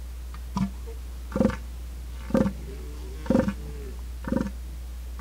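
Elephant seal calling: five short calls, about one a second, over a steady low hum.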